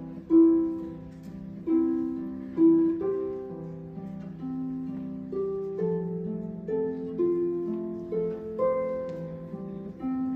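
Background music: a slow melody of plucked string notes, each starting sharply and fading away.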